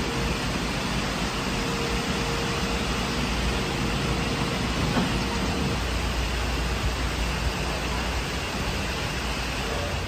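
Steady rain falling, an even hiss with no break. A thin steady hum runs under it through the first half and stops about halfway.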